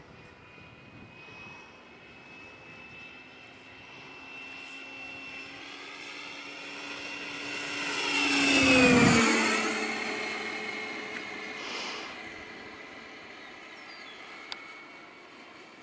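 Electric ducted-fan whine of a HET L39 RC jet (HET 9305 fan unit, Typhoon motor) as it makes a low pass. The whine swells to its loudest about nine seconds in, drops in pitch as the jet goes by, then fades as it flies off.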